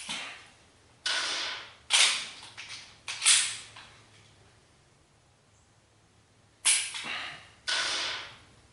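Pistol dry-fired with a laser training cartridge, giving six sharp shot-like pops, each trailing off quickly: four in quick succession, then a pause of about three seconds, then two more near the end.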